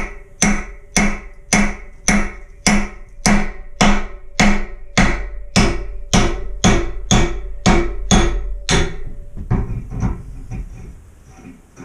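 Short-handled sledgehammer striking a steel chisel driven between the sections of a cast iron radiator, a steady run of about sixteen ringing metal blows a little under two a second, tapping to pop the sections off the nipple joining them. The blows stop near the end, followed by softer knocks and clatter.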